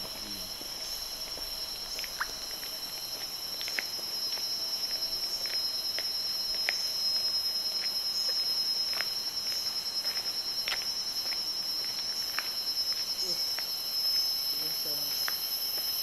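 Dense chorus of tropical forest insects: a steady, high-pitched shrill at several pitches at once, with short sharp chirps scattered through it about every second.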